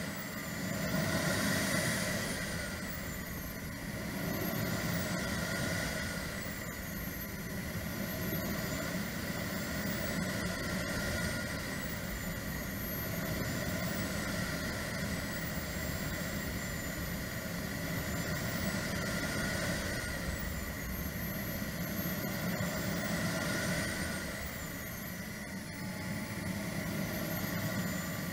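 Swiwin 170B model jet turbine running, heard from the jet's onboard camera: a steady rushing noise under a high whine that rises and falls several times as the engine spools up and down.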